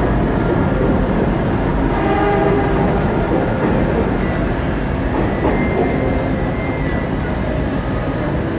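A steady, loud rumbling noise, with a few faint held tones over it.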